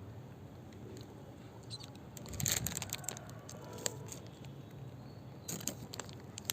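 Light clicks and rattles of plastic toy cars and track pieces being handled, with a louder clatter about two and a half seconds in and another near the end, over a steady low hum.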